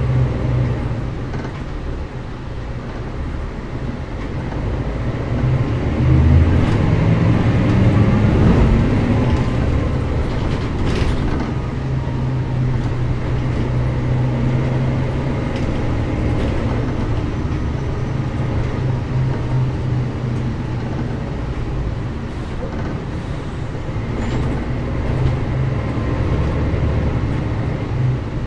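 Mercedes-Benz O405GN² articulated bus's diesel engine running while the bus is under way. About six seconds in it gets louder and its pitch climbs as the bus pulls away or speeds up, then it settles into a steady drone, with a brief click near eleven seconds.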